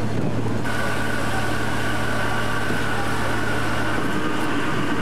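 Motorboat engine running at a steady low hum.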